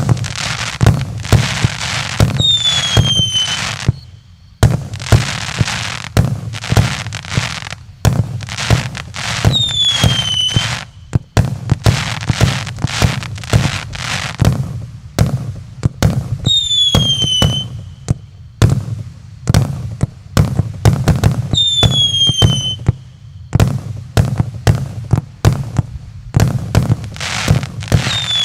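A 100-shot New Year fireworks cake with 1-inch tubes firing in rapid succession: a dense run of launch thumps and bursting cracks several times a second. About every six or seven seconds a short whistle falls in pitch.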